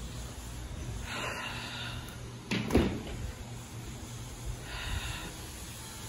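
A single sharp knock or thump about halfway through, over a low steady hum, with two brief soft hisses before and after it.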